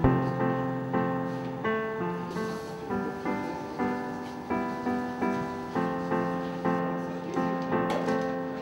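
Background piano music, slow struck notes or chords about twice a second, each fading before the next.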